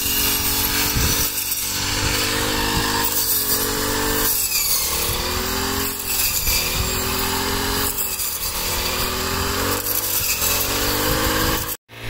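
Small petrol engine of a hand-guided wheat-cutting machine running hard as it cuts wheat, with a dense rasping hiss over the engine. Its pitch sags twice, about four and eight seconds in, and picks up again.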